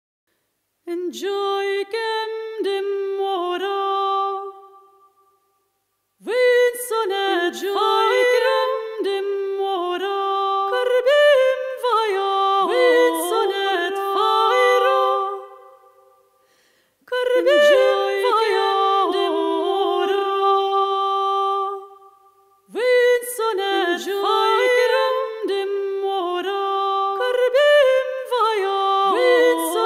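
Two high voices singing unaccompanied together, in long phrases broken by short pauses.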